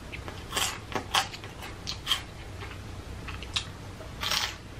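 Crunching and chewing of a Flamin' Hot Cheeto close to the microphone: a scatter of short, irregular crisp crunches.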